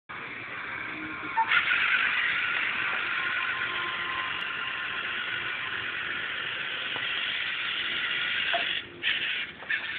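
LEGO Mindstorms NXT robot's servo motors and gear train whirring steadily as it drives, with brief breaks near the end.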